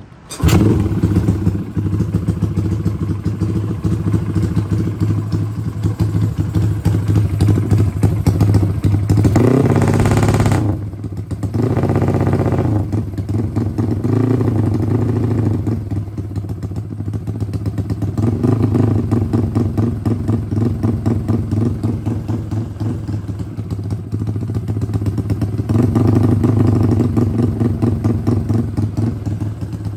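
Big-bore four-stroke single-cylinder motorcycle engine, a Honda EX5 with a 68 mm piston and an LC135 head on a carburettor, catching about half a second in after being kicked over against heavy compression. It then runs loudly through an open GL exhaust and is revved up several times, the highest rev about ten seconds in, then falls back to idle. The engine is on its first run on rich run-in jetting, and the owner hears no knocking.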